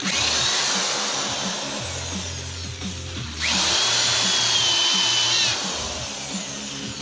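Corded electric drill boring countersink holes into a pine 2x4. It runs twice: once at the start, its whine sinking slowly as it slows in the wood, then again about 3.5 seconds in, rising to speed and holding for about two seconds before it stops.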